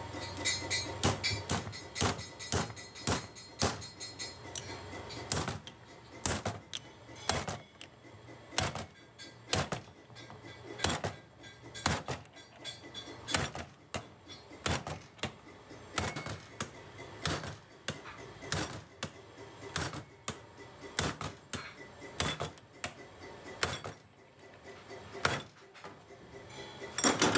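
Repeated hammer blows on metal in a workshop, uneven in spacing, about two a second at first and slower later.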